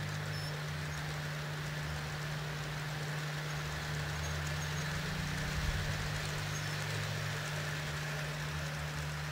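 G-scale model trains running with a steady low hum and a constant drone, with no distinct clicks or breaks.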